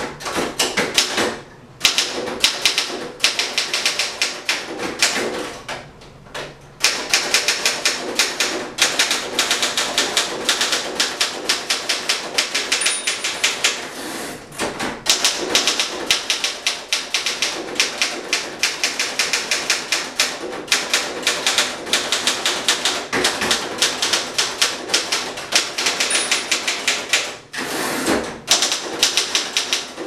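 1926 Remington No. 12 manual typewriter being typed on: fast runs of sharp keystroke clacks as the typebars strike the platen, with a few short breaks. Near the start the carriage is thrown back by its return lever for a new line.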